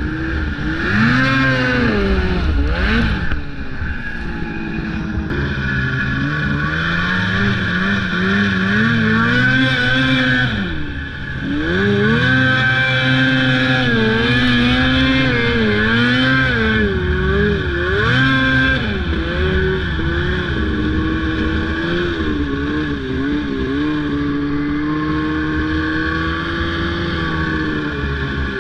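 Snowmobile engine being throttled up and down again and again while riding up and over a snowy hill. It drops off briefly about eleven seconds in, then runs at a steadier pitch near the end.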